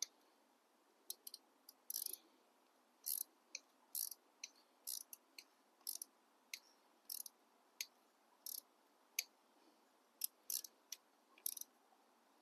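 Ratchet wrench clicking in short, irregular strokes, faint and sharp, as a stubborn exhaust header fastener is worked loose.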